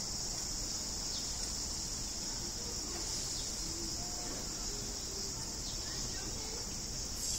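Steady high-pitched drone of a summer cicada chorus, unbroken throughout.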